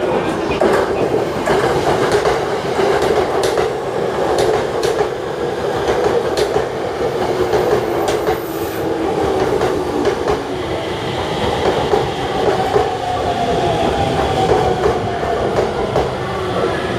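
JR Yamanote Line electric commuter train pulling into the platform, its wheels clicking over the rail joints under a steady rumble. About two thirds of the way in, a falling whine from the motors as it slows to stop.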